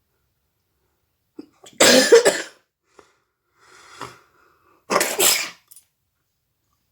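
A woman blowing her nose forcefully twice, about three seconds apart, each blast lasting under a second, with a softer breath between them.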